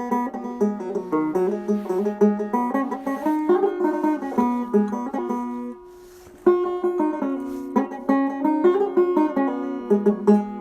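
Background music: a quick tune picked on a plucked string instrument. It drops away briefly about six seconds in, then resumes.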